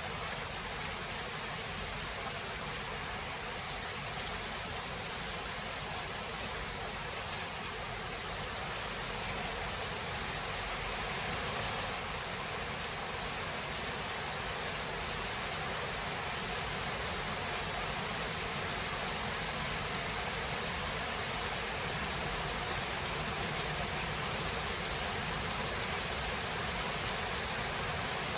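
Steady rain falling, an even hiss with no distinct thunderclaps.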